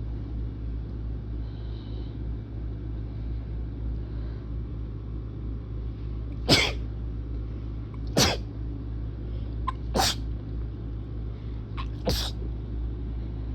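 A person sneezing four times in quick succession, about every two seconds, from irritated, congested sinuses. A steady low hum runs underneath, and the first several seconds hold nothing else.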